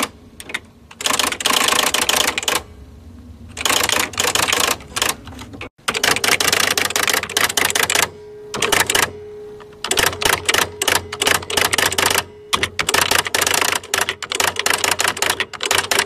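Typewriter being typed on: quick runs of clacking keystrokes in bursts, with short pauses between the runs.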